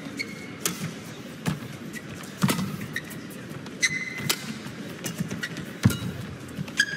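Badminton rally: sharp cracks of rackets striking the shuttlecock, about a second apart, with short high squeaks of court shoes on the mat and footfalls in between.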